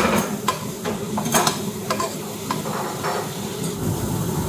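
Food sizzling in a frying pan while a utensil stirs it, scraping and clinking against the pan several times. A low hum comes in near the end.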